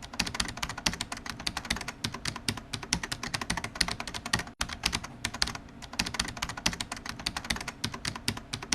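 Rapid computer-keyboard typing, many keystrokes a second, with a brief break about four and a half seconds in.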